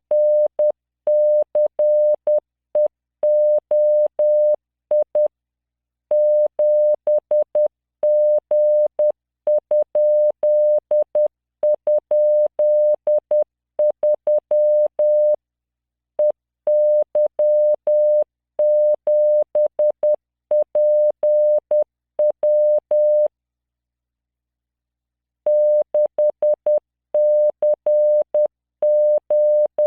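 Computer-generated Morse code practice tone from LearningMorse software: a single 600 Hz tone keyed on and off into dots and dashes at 10 words per minute, sending random five-character code groups. There is a gap of about two and a half seconds between groups about three-quarters of the way through.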